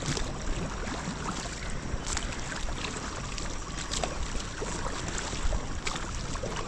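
Rushing river water around a rubber raft, a steady noisy wash with occasional sharp splashes or knocks.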